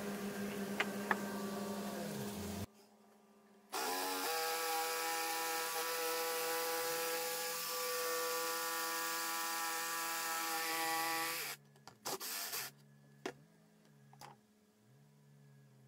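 Makita 18 V cordless jigsaw starting up about four seconds in, its motor rising quickly to a steady pitch. It runs for about eight seconds while cutting through a thin wooden board, then stops. A few short knocks follow.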